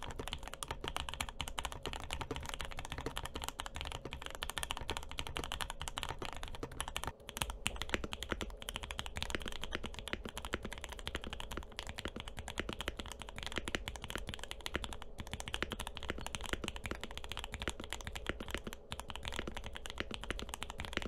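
Fast continuous typing on a 65% mechanical keyboard, dense clacking keystrokes. It runs first on the keyboard as it was, then, after a brief drop about seven seconds in, on the same keyboard with its case filled with kinetic sand.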